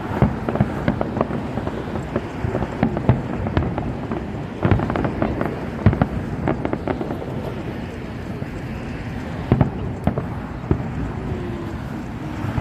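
Aerial fireworks going off: a steady crackle with many sharp pops and a few louder bangs, the loudest about five and six seconds in and again just before ten seconds.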